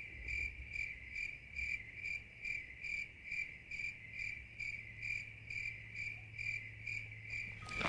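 A cricket chirping steadily: a high-pitched pulsing trill, about two and a half pulses a second, that stops abruptly near the end.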